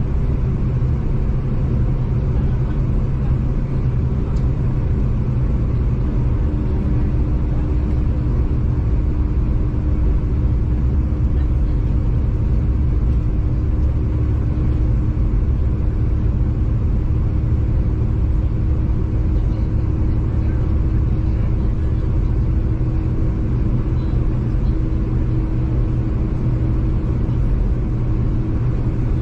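Steady rumble of a V/Line passenger train running along the line, heard from inside the carriage, with a faint steady hum joining about six seconds in.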